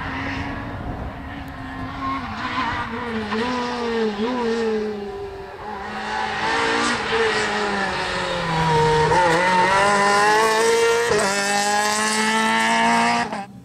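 Rally car engine revving hard through a stage, its pitch rising and dipping again and again with throttle lifts and gear changes. It grows louder about halfway through as the car comes closer, then cuts off suddenly near the end.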